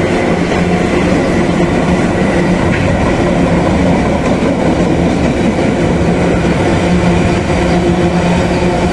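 Covered hopper wagons of a cement train rolling past on the rails: a loud, steady rumble of steel wheels on track, with a low hum running through it.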